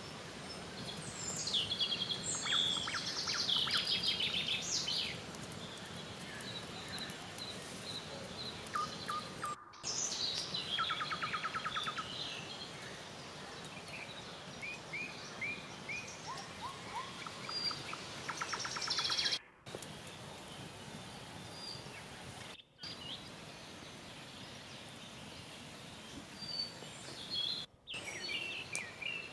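Forest ambience with several songbirds singing and calling over a steady background hiss: trilled phrases, quick series of chirps and high whistled notes. The sound drops out briefly four times.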